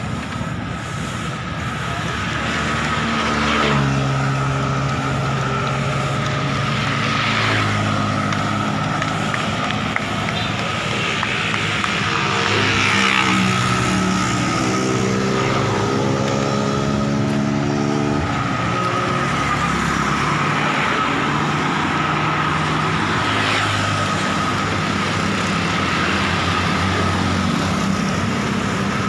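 Road traffic noise from small motorcycles passing close by, their engines changing pitch as they go by, over steady road noise. A steady high whine runs underneath.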